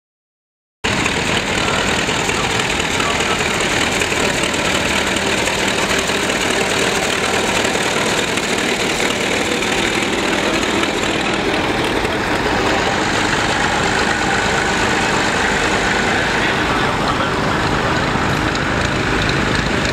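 Vintage tractor engines running as the tractors drive across the show ring, loud and steady, starting suddenly about a second in.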